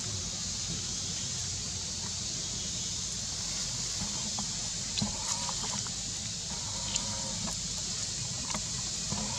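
Steady outdoor background of hiss and low rumble, with a few faint clicks and a faint held tone a little past halfway that comes back near the end.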